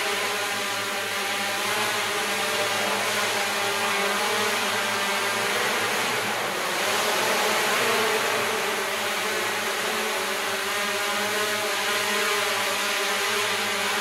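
Hexacopter drone hovering: its six motors and propellers give a steady buzz made of several close pitches that shift slightly as it holds position.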